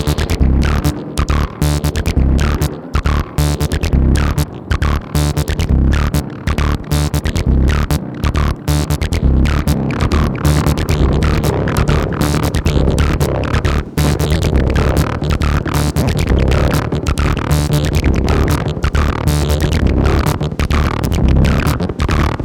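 A 303-style acid synth bassline playing a fast, even run of short notes, each with a sweeping filter chirp, sent through a Dynacord Echocord Super 76 tape echo.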